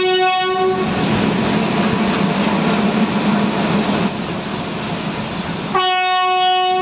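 Train horn sounding a steady single-pitched blast that stops just under a second in, followed by the running rumble of a train on the tracks. A second horn blast begins near the end.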